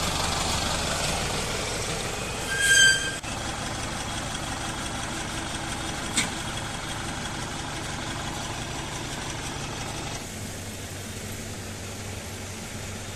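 Flatbed tow truck's diesel engine running steadily as the truck pulls up and stops, with a short high squeal about three seconds in, typical of brakes as it comes to a halt. A single click comes around the middle, and the engine noise eases slightly near the end.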